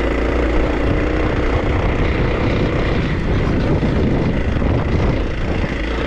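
2024 Kawasaki KLX300's single-cylinder engine running steadily under load on a rocky uphill climb, with heavy wind rumble on the helmet-mounted microphone.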